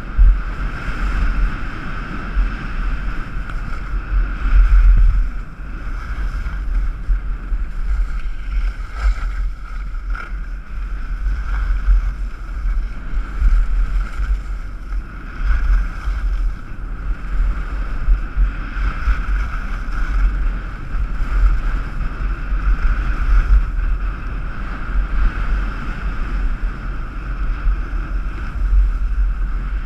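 Wind buffeting a body-worn action camera's microphone during a downhill ski run, a heavy rumble that swells and dips, with skis hissing and scraping over packed snow.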